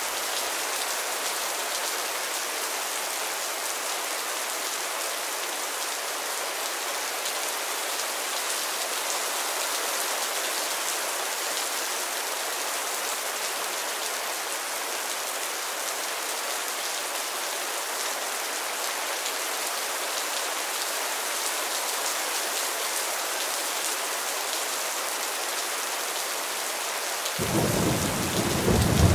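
Steady heavy rain falling on leafy trees, an even hiss with no gaps. Near the end a deep rumble of thunder sets in and the sound grows louder.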